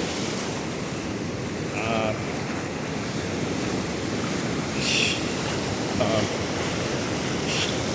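Pacific surf washing up the beach, a steady rushing wash, with wind buffeting the microphone. Two short, sharp hisses stand out, one about five seconds in and one near the end.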